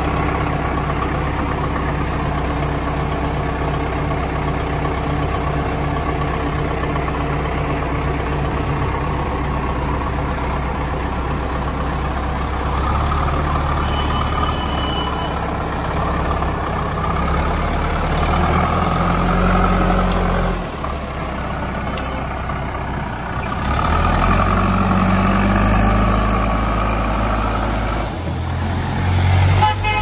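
Heavy diesel engines of a JCB 3DX backhoe loader and a Tata tipper truck, idling steadily at first, then revving up and down through the second half as the vehicles get moving.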